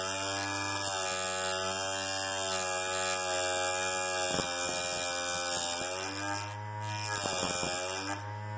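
Electric piston-ring end-gap grinder's motor running with a steady hum, its abrasive wheel grinding the end of a piston ring. The pitch sags briefly twice and the level dips for a moment about two-thirds of the way through.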